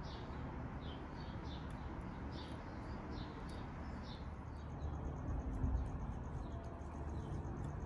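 Birds chirping in the background. About halfway through, the DT Swiss 54-tooth star-ratchet freehub of a Roval CL50 rear wheel starts a rapid, even ticking as the wheel coasts.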